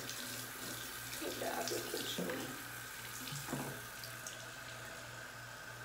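Bathroom tap running steadily into the sink, left on so the water comes through warm.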